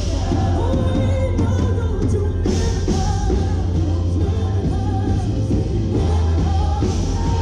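Live worship band performing a rock-style song: several singers over drums and electric guitars, with a strong steady low end.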